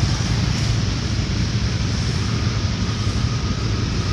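Steady wind rush on the microphone over a motorcycle engine running at an even pace while riding.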